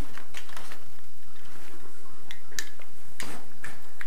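Hands rummaging through a wicker basket of small tools and items: irregular clicks, clinks and rustles as things are moved about.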